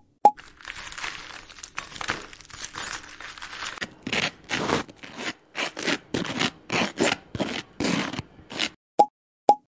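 Hands mixing and squeezing a crumbly mixture of chopped spinach, paneer and spices in a glass bowl. First a continuous rustling, then from about four seconds in a quick run of short rustling squeezes, about three a second. Two short, loud plop blips near the end.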